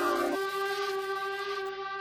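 Background music: several sustained notes held together as a chord, which changes about a third of a second in.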